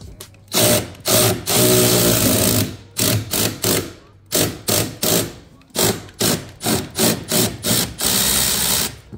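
A power tool spinning a fastener, run in short trigger bursts of about three a second, with two longer runs, one early and one near the end, while loosening the motor mount Torx bolts.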